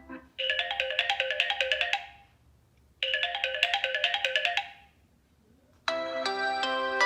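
Samsung Galaxy A6 stock ringtone: a short, quick phrase of bright, bell-like notes, played twice with a pause between. A different, fuller ringtone starts near the end.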